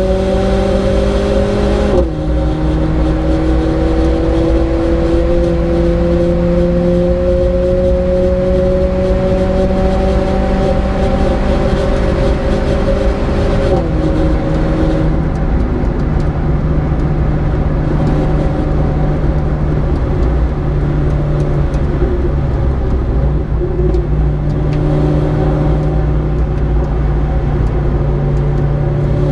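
Mercedes-AMG A 45's turbocharged 2.0-litre four-cylinder, heard from inside the car, accelerating hard in fourth gear with the revs climbing. About two seconds in it upshifts to fifth and the pitch drops suddenly, then climbs slowly again as the car pulls in fifth. About fourteen seconds in the revs fall away, and the engine runs at a lower, steadier note with tyre and wind noise for the rest.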